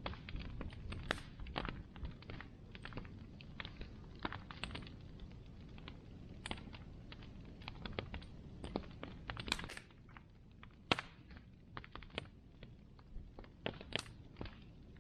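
Wood bonfire crackling, with irregular sharp pops and snaps over a low steady rush of the flames; the loudest pop comes about eleven seconds in.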